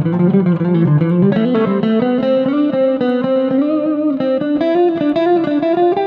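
Improvised guitar music: a run of quickly picked notes over held lower notes.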